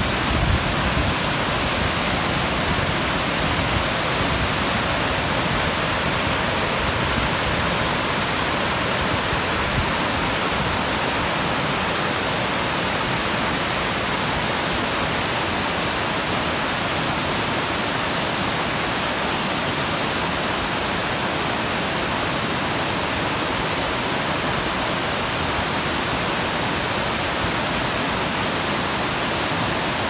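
Rushing water of a waterfall and a rocky mountain stream: a steady, unbroken rush of water.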